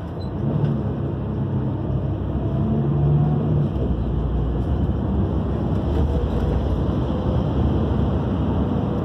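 Passenger train running at speed, heard from inside the carriage: a steady rumble of wheels on rails. The rumble deepens and grows louder about four seconds in as the train runs into a tunnel.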